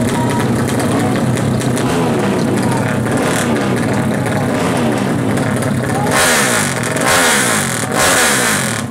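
Highly tuned 350 cc carburetted Yamaha Jupiter MX four-stroke drag-bike engine revved at the start line, its pitch sweeping up and down again and again. Three of the revs, in the last three seconds, are the loudest and harshest.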